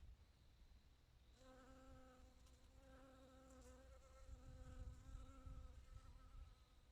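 Bee buzzing in flight while collecting nectar and pollen: a faint, steady low hum that starts about a second and a half in, breaks off briefly in the middle and stops near the end, over a soft low rumble.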